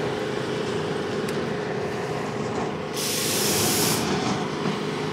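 Propane-fired crack-filling machine running with a steady hum. About three seconds in, a loud hiss rises over it for about a second, then stops.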